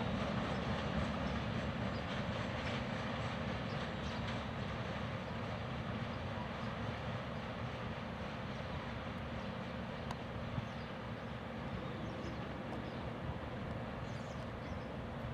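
Freight train of loaded log cars rolling past on the rails, a steady rumble that slowly fades.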